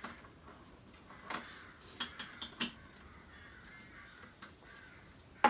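Small metal clicks and clinks of a spanner on the spindle nut and washer as the nut is tightened down, a handful of them a little over a second in and one sharp, louder click near the end.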